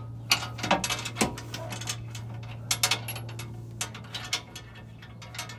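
Irregular sharp metallic clicks and clinks as bolts are fitted into a zinc-plated transfer-case skid plate under a Jeep, over a steady low hum.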